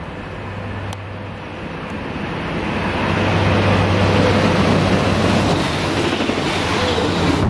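BRB class 622 diesel multiple unit approaching and running past along the platform, its engine hum and rolling noise growing louder over the first few seconds and then staying loud as it goes by close.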